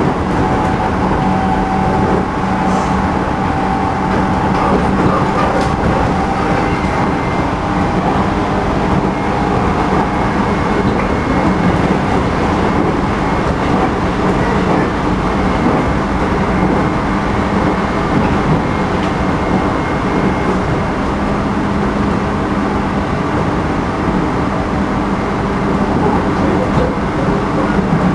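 JR Central 211 series motor car's MT61 internally fan-cooled traction motors and gearing running at steady speed, a loud steady drone with a heavy beating undulation over the rail and wheel noise. The beating is the abnormal noise this car is known for.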